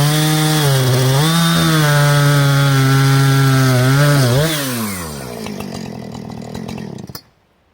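Two-stroke chainsaw running at full throttle, cutting through a log with its pitch held steady under load. About four and a half seconds in, the throttle is released and the engine drops back to idle. The sound cuts off abruptly near the end.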